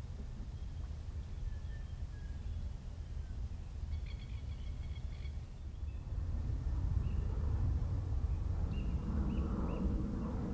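Outdoor ambience of a low, steady background rumble with faint bird calls. A few repeated notes come about four seconds in. From about six seconds the rumble grows louder and a bird gives a string of short chirps.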